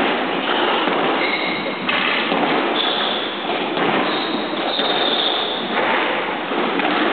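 Squash rally: players' shoes squeaking in short high squeals on the hardwood court floor as the ball is played, over a loud, steady din in the hall.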